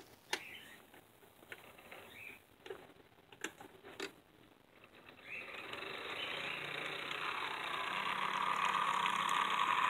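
HO scale model diesel locomotive running along the track: its motor and wheels make a steady whirring, with a low hum, that grows louder from about halfway through as it approaches. A few sharp clicks come first.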